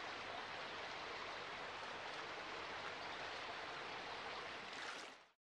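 A shallow stream running over rocks: a steady rush of water that fades out near the end.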